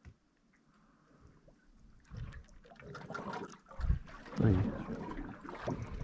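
Water sloshing and splashing against a small boat, with a couple of dull knocks a little after the middle.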